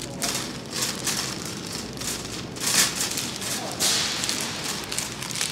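Loaded shopping cart rolling across a hard store floor, its wheels and wire basket rattling with a continuous clatter.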